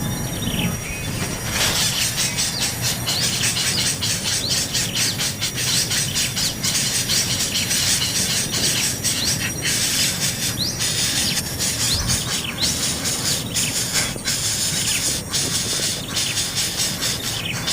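Hungry nestlings begging loudly for food, a continuous harsh, hissing chatter with a few short rising chirps.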